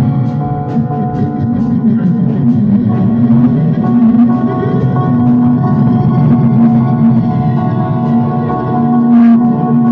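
Rock band playing: sustained guitar and bass chords over a drum kit keeping a steady beat on the cymbals.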